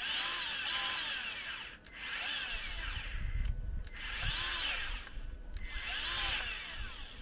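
Battery-powered grease gun motor running in four short bursts, each spinning up and winding back down in pitch, as grease is pumped into a tractor's front tie rod end fitting.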